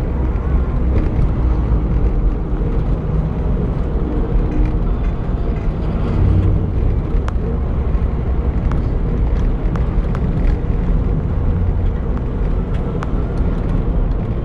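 Steady low rumble of a moving road vehicle heard from inside it: engine and road noise, with a few faint clicks or rattles here and there.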